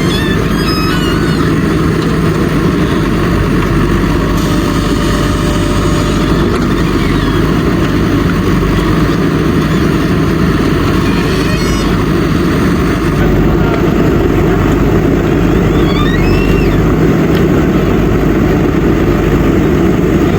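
Backhoe loader's diesel engine running steadily, a little louder about two-thirds of the way through, with a few faint high chirps over it.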